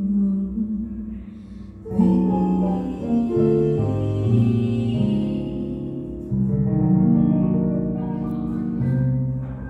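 A stage keyboard with a piano sound, a Nord Electro 6D, plays a slow passage of sustained chords over a moving bass line. A sung female note trails off in the first half-second before the keyboard carries on alone.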